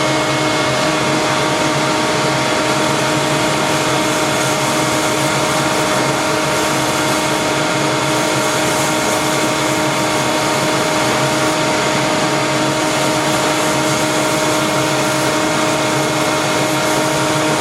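Wet/dry shop vacuum switched on at the start and running steadily, a loud even rush of air with a constant motor whine, pulling sanding dust away from a lathe through its hose.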